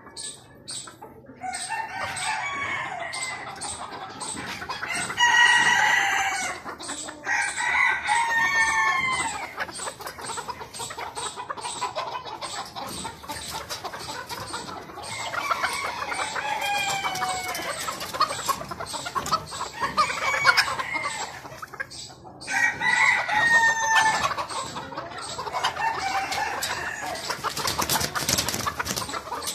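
A flock of caged chickens clucking and calling over one another, with roosters crowing several times.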